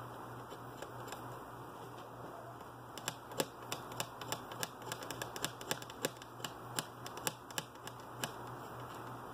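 A run of light, sharp clicks and taps, irregular at about three or four a second, from small things being handled on a workbench. It starts about three seconds in and stops about a second before the end, over a steady low hum.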